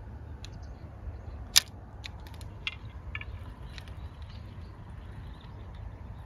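A handful of sharp clicks and taps from handling a spinning rod and reel, the loudest about one and a half seconds in, over a steady low outdoor rumble.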